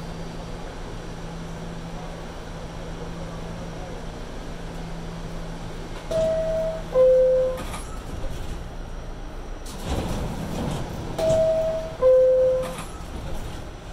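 New York City subway car's door-closing chime, a descending two-note ding-dong, sounding about six seconds in and again about eleven seconds in, signalling the doors are about to close. A steady hum of the stopped car runs beneath, with a loud rush of noise around ten seconds between the two chimes.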